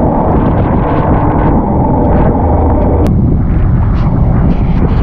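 Johnson outboard motor running at speed, with wind buffeting the microphone and water rushing past the hull. About three seconds in it cuts off abruptly to a different steady low rumble.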